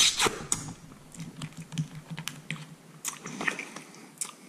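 Close-up eating sounds: scattered small clicks and wet smacks of lips and teeth as meat is picked and sucked off the bones of a cooked rabbit's head, with one louder smack at the start.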